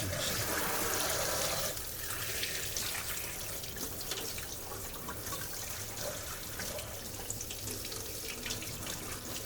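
Water running from a tap into a sink while hands are washed: a steady splashing stream, louder for the first couple of seconds, then settling.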